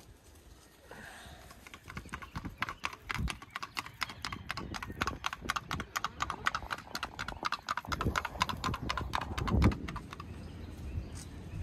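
Paso Fino horse's hooves clip-clopping on a paved road in a fast, even, rapid four-beat gait, many light strikes a second. A few low thumps come in, the loudest near the end.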